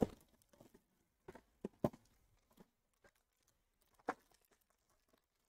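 Baseball trading cards being flipped through by hand: about half a dozen faint, sharp clicks and light rustles, spaced irregularly a second or so apart.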